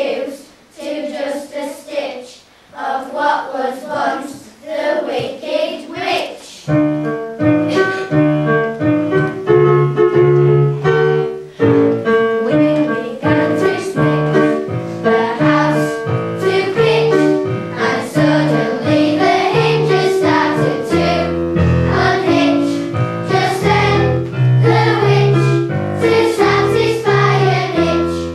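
Children's choir singing a song. About seven seconds in, an instrumental accompaniment with chords and a bass line comes in under the voices.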